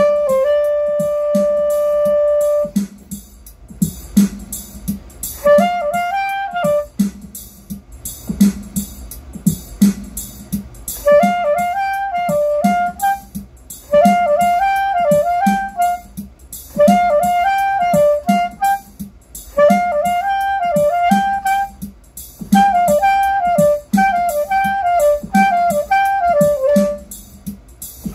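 Straight soprano saxophone playing over a steady drum beat: one long held note at the start, then short, repeated riff-like phrases with brief pauses between them, while the kick drum and hi-hat keep an even pulse underneath.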